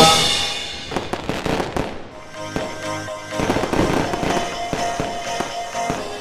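Fireworks shells bursting overhead: a run of bangs and crackling pops, loudest about a second in and again between two and four seconds in. A song's last chord dies away at the start, and faint music continues underneath.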